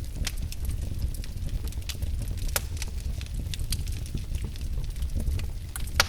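Fireplace fire crackling: irregular sharp snaps and pops over a steady low rumble, with one louder pop near the end.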